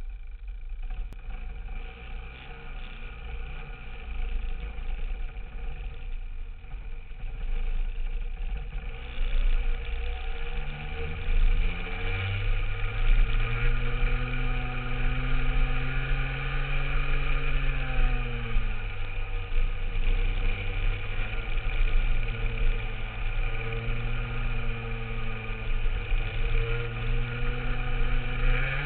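Rotax 125cc two-stroke kart engine heard from on board, running at low revs along the pit lane for the first nine seconds or so. It then accelerates out onto the track, its pitch climbing, rising and falling with the revs through the corners, and climbing again near the end.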